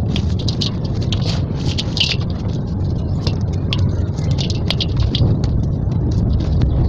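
Dry red sand cement slabs crumbling and snapping between the fingers over a steel bowl, with powder sifting down: many small, crisp crackles and crunches. A steady low rumble runs underneath.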